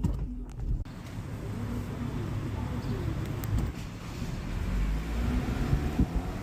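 A short tail of music gives way to city street traffic noise heard from inside a car, a steady low rumble with pigeons cooing.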